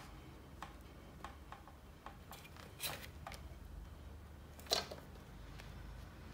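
Faint clicks and taps of laminated plastic pieces being handled on a sliding-blade paper trimmer, with two short scraping swishes, the louder one near five seconds in.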